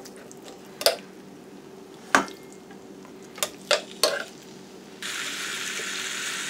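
Metal tongs clicking against the grill plate of a George Foreman grill a handful of times as raw marinated chicken thighs are laid on it. About five seconds in, a steady sizzle starts as the meat sits on the hot plate.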